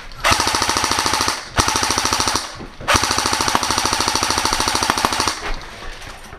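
Airsoft gun firing on full auto in three long, rapid bursts, the third the longest, with a steady mechanical whine under the shots.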